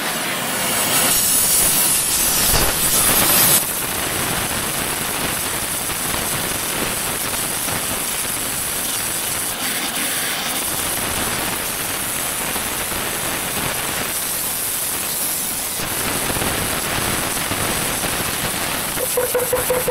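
Oxy-fuel rosebud heating torch burning with a steady hissing rush as it heats the worn pin boss of a dozer blade C-frame so the steel can be beaten back into shape. The hiss is louder and sharper for the first few seconds, then settles into an even rush.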